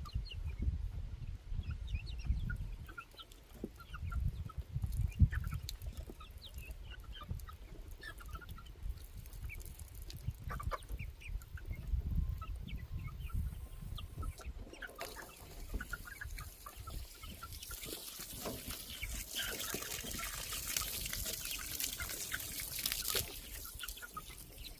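A flock of chickens clucking, with short calls scattered throughout. Low handling and wind rumble runs through the first half, and a steady hiss rises in the second half before stopping shortly before the end.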